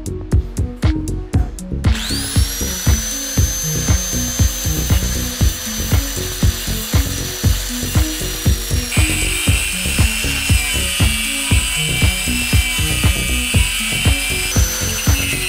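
Electronic background music with a steady beat, over which a power tool starts about two seconds in and runs with a steady high whine that changes pitch twice.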